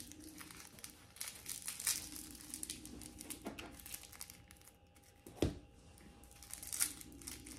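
Faint crinkling and tearing of a plastic snack wrapper as it is handled and opened, with a single thump about five and a half seconds in.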